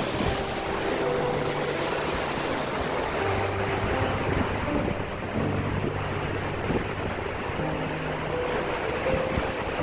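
Steady rush of creek water with some wind on the microphone, under faint background music of held low notes that change pitch every second or so.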